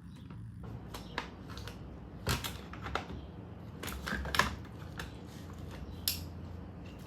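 Irregular light metallic clicks and taps of AR-15 rifle parts being worked back together by hand during reassembly, with some struggle to get them to seat.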